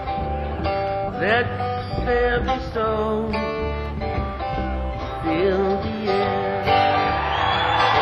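Live acoustic guitar music: an instrumental passage of picked and bending guitar notes over a steady bass line. A hissing wash of sound rises under the music near the end.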